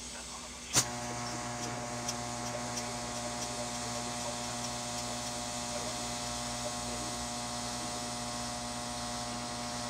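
TIG welding arc on steel: a sharp crack as the arc strikes about a second in, then a steady electric hum as the arc burns.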